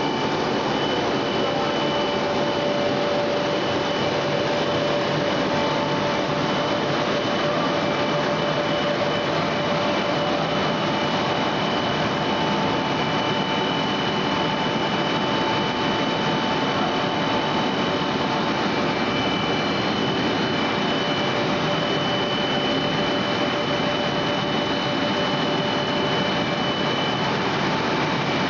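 An EPE foam sheet extrusion line running steadily, with the hiss of its centrifugal air blower. A few faint steady whining tones sit over the noise, which never changes.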